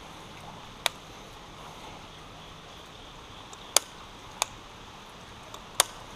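Steady faint hiss of rain and creek water, with four sharp clicks at irregular spacing while a baitcasting reel is cranked to retrieve a frog lure.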